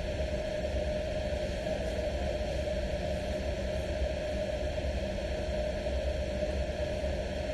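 Steady background hum with a constant hiss, unchanging throughout.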